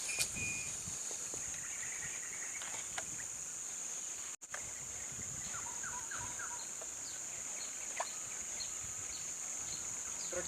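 Insects droning steadily at a high, even pitch, with a few faint clicks and short chirps scattered over it.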